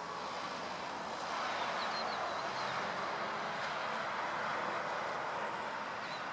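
Distant jet engine noise from an Iberia Airbus A340 rolling out on the runway after landing: a steady rush that swells slightly about a second in. A few bird chirps come through over it.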